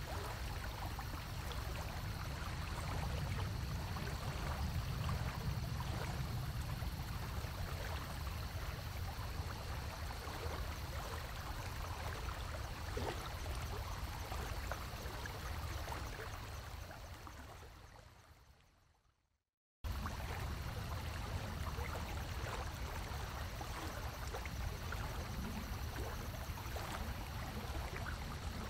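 Steady rushing, water-like noise with a low rumble from a large display aquarium's water circulation. It fades out about two-thirds of the way through, falls silent for a moment, then cuts straight back in.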